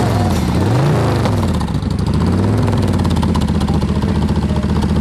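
Motorcycle engine heard at its chrome slash-cut exhaust, the revs blipped once about a second in and falling back to a steady idle.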